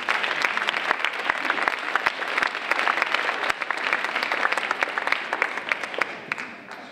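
Audience applauding, a dense clatter of many hands that swells just as it begins and dies away near the end.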